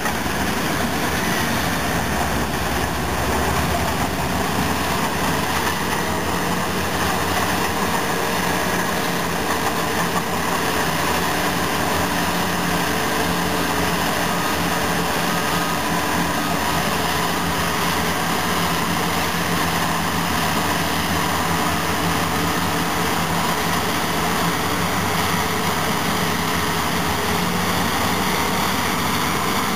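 A Caterpillar 651B wheel-tractor scraper being push-loaded by Cat D10N and D10T bulldozers pushing in tandem behind it. The heavy diesel engines run hard under load in a steady, loud drone while the scraper's bowl fills with dirt.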